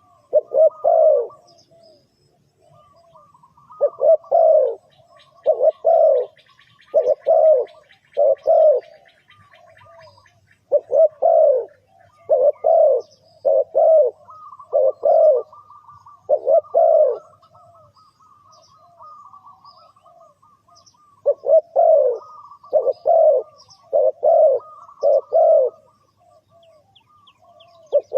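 Spotted dove cooing over and over, its low coos coming in runs of several notes with short pauses between the runs. Other small birds chirp and twitter faintly above it.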